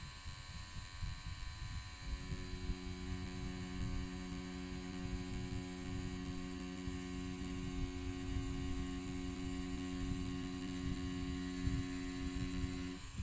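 Pen-style rotary tattoo machine running with a steady hum as its needle lines an outline on synthetic practice skin. The tone drops out for about the first two seconds, then holds steady.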